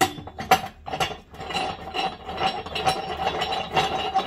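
Steel hold-down and tightening bar being fitted and spun down the center post of a manual tire changer. A few sharp metal clanks in the first second, then a continuous metallic rattling and scraping with a faint ringing as the bar is turned down toward hand tight.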